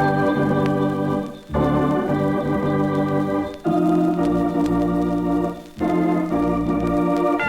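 Instrumental music: sustained organ-like keyboard chords, each held about two seconds before changing to the next.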